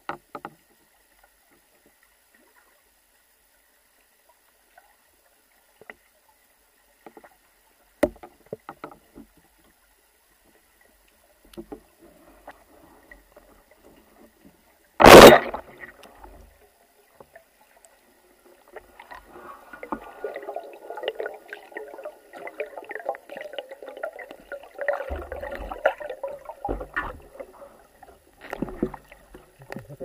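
Rubber-band speargun firing underwater: one sharp, loud crack about halfway through. Afterwards, faint crackling and rustling underwater for the last ten seconds or so.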